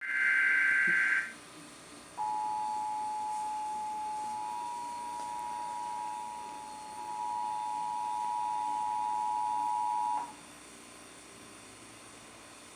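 Emergency Alert System broadcast opening: the end of the SAME digital header, a warbling data burst, stops about a second in. After a short gap, the EAS two-tone attention signal (853 Hz and 960 Hz sounded together) holds steadily for about eight seconds and then cuts off. Together they announce an AMBER child abduction alert.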